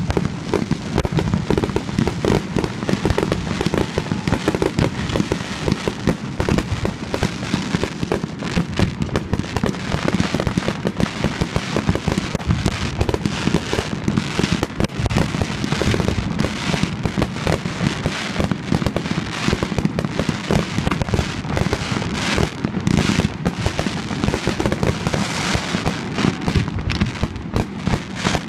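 Fireworks display with aerial shells bursting: an unbroken run of rapid bangs, packed close together with no pauses.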